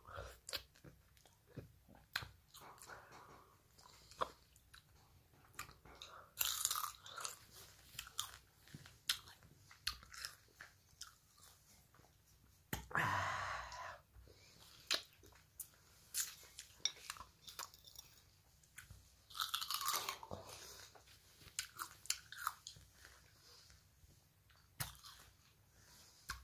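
Close-up chewing and crunching of sour plums: irregular bites and chews, with one longer noise lasting about a second just past the middle.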